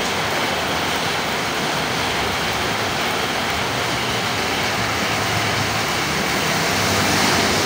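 Heavy rain falling steadily, a constant hiss. A low hum joins in about halfway through.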